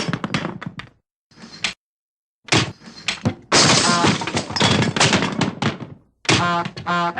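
A run of separate cartoon sound effects: quick knocks and thuds, then a long clattering crash, then a short buzzing sound near the end.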